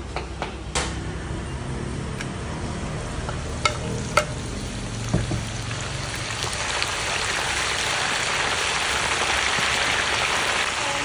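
Pork deep-frying in a large wok of hot oil: a steady dense sizzle that grows louder about six seconds in as a ladle stirs the pieces through the oil. A few sharp knocks sound in the first half.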